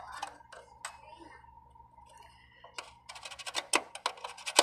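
Soldering iron tip scraping and tapping against the metal terminal of an RCA jack on a circuit board, to clean the metal so solder will stick. A few isolated clicks at first, then a quick run of sharp metallic ticks near the end.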